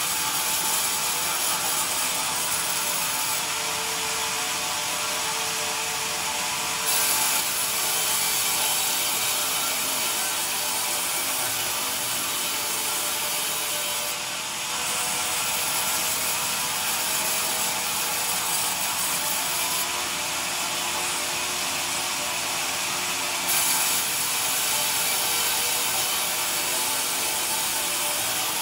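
Vertical band sawmill sawing through a squared pine beam on its log carriage: a steady sawing hiss over the machine's running noise. The sound shifts several times, with brief louder moments about seven seconds in and again near the end, as the carriage carries the beam along the blade.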